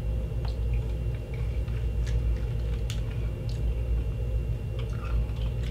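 A steady low hum with a few faint, sharp clicks: small hard candy pellets being chewed, which are hard to chew and don't crunch like Nerds.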